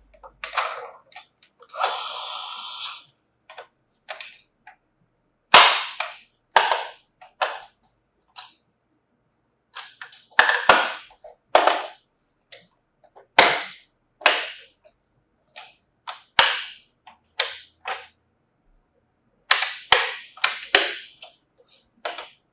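About two dozen sharp clacks and knocks of hard objects at irregular intervals, each ringing briefly, with a short hiss about two seconds in.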